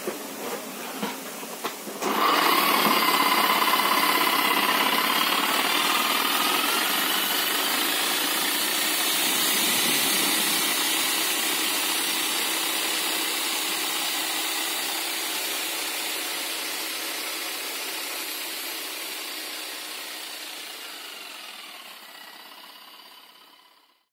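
An 11 kg 11E-type electric demolition hammer, fitted with a new armature, switches on about two seconds in and runs steadily with a motor whine. The sound slowly dies away over the following twenty seconds and cuts off near the end.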